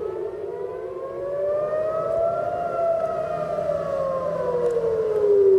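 Civil-defence air-raid sirens wailing, the pitch rising for about two and a half seconds and then falling again. The sirens are the warning of incoming rockets.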